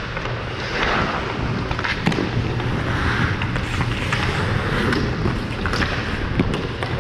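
Ice hockey skate blades scraping and carving across the ice in repeated strides, with scattered sharp clicks of the stick on the puck and a steady low rumble on the head-mounted microphone.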